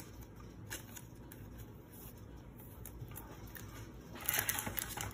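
Quiet handling of Pokémon trading cards: a card being slipped into a plastic sleeve, then a louder rustle of cards sliding on the table about four seconds in.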